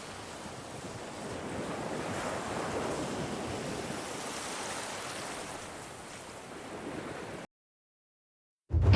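Ocean surf sound effect: a wash of waves that swells about two to three seconds in and eases off, then cuts off abruptly a little before the end. Loud music with drums starts right at the end.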